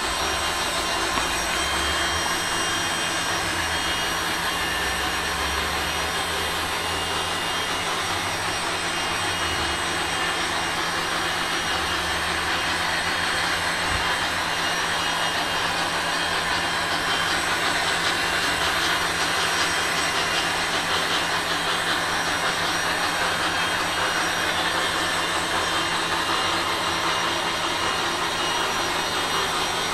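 Blade MSR micro radio-controlled helicopter flying, its small electric motors and spinning rotor giving a steady whine.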